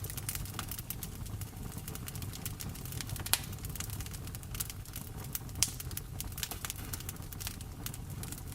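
Wood fire in a fireplace crackling, with many small snaps and two louder pops about a third and two-thirds of the way through, over a low steady rumble.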